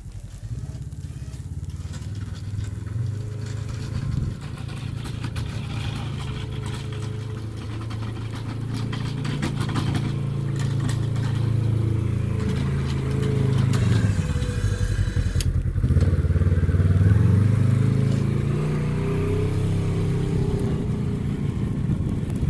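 Polaris RZR XP 1000 side-by-side's parallel-twin engine running as it plows snow with its blade, growing louder as it comes closer. About two-thirds through the engine note dips and climbs again as the machine changes direction and backs away, with a single sharp knock.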